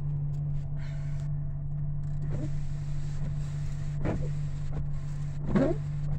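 Pickup truck engine idling steadily while the windshield wipers sweep heavy wet snow off the glass, three swishes about one and a half seconds apart in the second half.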